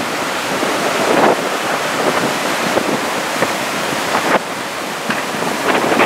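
Strong gusting wind buffeting the microphone over the rush of choppy surf, easing briefly a little after four seconds in.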